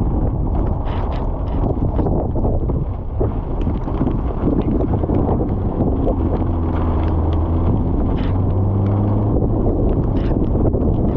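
Strong wind buffeting the microphone with a dense low rumble throughout. A low, steady hum, like an engine, rises out of it for about four seconds midway.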